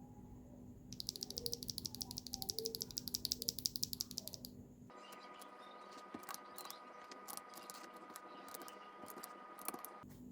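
Keystrokes on a Keychron V6 Max mechanical keyboard with Akko V3 Pro tactile switches: a quick, even run of key clicks for a few seconds, then, after an abrupt change in background about halfway through, scattered single key clicks over a faint steady tone.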